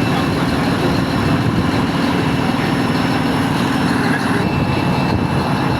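Large diesel engine running steadily, a fast even beat under a faint steady high whine.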